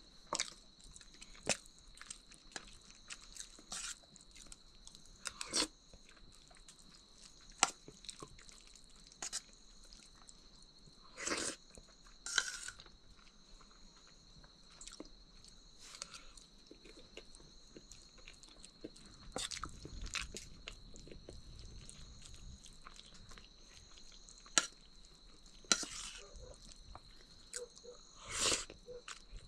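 Eating: chewing with scattered small clicks and taps, over a steady high-pitched tone.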